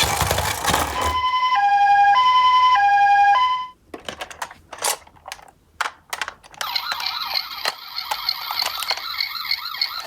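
Japanese-style two-tone ambulance siren sounding its alternating high and low 'pee-poh' notes for about two and a half cycles, then cutting off. A few sharp clicks follow, and near the end a wavering, warbling tone starts up.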